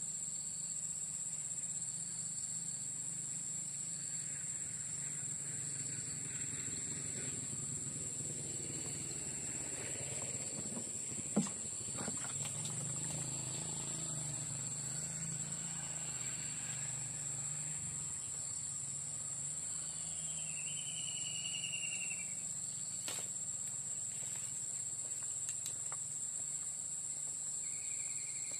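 Insects droning steadily at one high pitch, like crickets, with a sharp click about eleven seconds in and a short whistled bird call about two-thirds of the way through.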